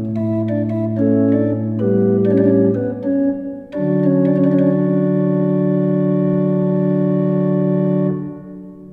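Small wooden chamber organ playing the closing bars of a chorale prelude: a few changing chords, a short break, then a final chord held for about four seconds, released near the end and dying away in the church's reverberation.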